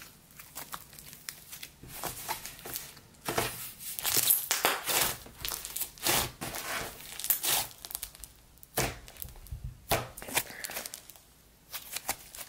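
Thick white slime being stretched, folded and squeezed by hand, giving irregular wet crackles and small pops. The crackling comes in bunches, loudest around four to five seconds in and again near ten seconds.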